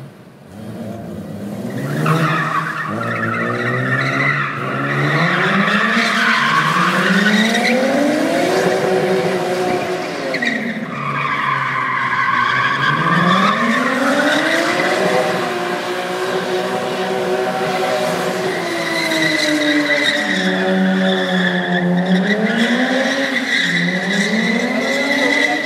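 BMW E36 coupe doing donuts: the engine revs climb and drop again and again while the rear tyres squeal, getting much louder about two seconds in.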